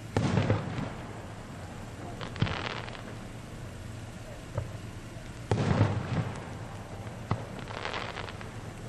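Aerial firework shells bursting: two loud booms about five seconds apart, each followed a couple of seconds later by a single sharp crack.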